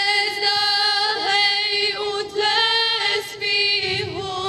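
A woman singing a slow song of mourning for the šehidi, holding long steady notes with brief dips in pitch between them.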